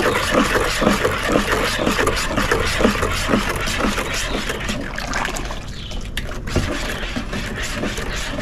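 A pitcher of fruit drink with sugar and ice being stirred: liquid swishing in quick repeated strokes that ease off about halfway through, with a few knocks later.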